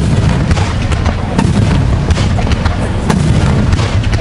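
Aerial fireworks going off in a dense barrage: continuous deep booming with many sharp cracks and crackles in quick succession.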